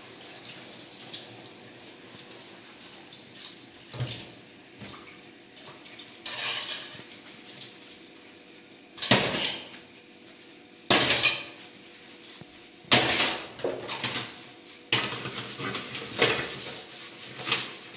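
Dishes and metal pots clattering and scraping against a stainless-steel sink as they are washed by hand: a string of sharp, irregular clanks after a few quieter seconds.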